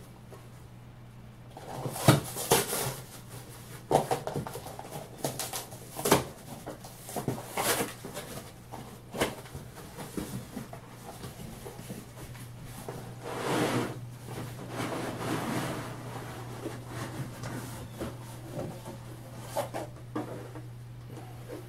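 Scattered knocks and clatter of objects being handled, with a longer stretch of rushing noise about thirteen seconds in, over a steady low hum.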